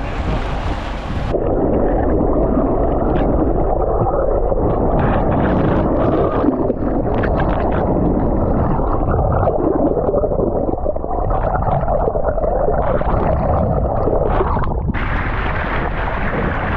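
Muffled rushing and gurgling of water heard through a camera held under the surface beside a moving boat, with scattered small pops and knocks. Near the end it opens up into the brighter open-air hiss of wake and spray as the camera comes back out of the water.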